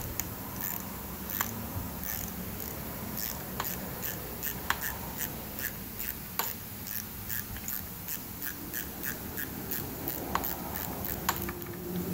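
Socket ratchet clicking in short runs as it is swung back and forth, backing out the engine's timing cover bolts. Light, sharp clicks a few times a second at uneven spacing, over a faint steady hum.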